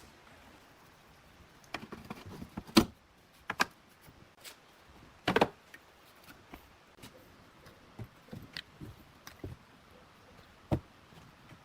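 Scattered knocks, clicks and clanks of tools and parts being handled, the loudest two about three and five and a half seconds in.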